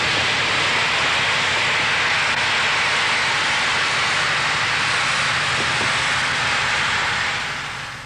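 Throw-overboard inflatable liferaft inflating from its compressed-gas cylinder: a loud, steady rushing hiss of gas filling the buoyancy tubes. It fades away near the end as the raft reaches full inflation.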